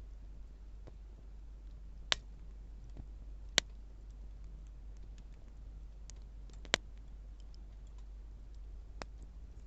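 Wood fire crackling: scattered sharp pops and snaps of burning wood, three louder ones about two, three and a half and nearly seven seconds in, with fainter ticks between.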